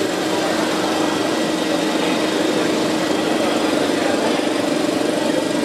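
Ultimaker 2 3D printer running, a steady mechanical hum and whirr from its fans and motors, over constant background noise.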